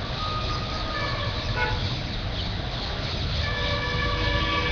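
Din of busy road traffic with vehicle horns honking, a shorter blast early and a longer one in the second half, over the scratchy chatter of a large flock of parrots in roadside trees.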